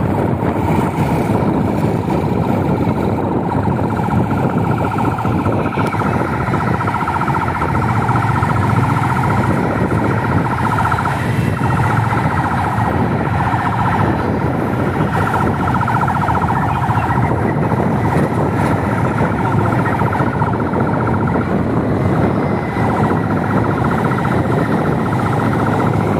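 Traffic and wind noise from a moving escort convoy, with a steady, fast-fluttering siren tone over it.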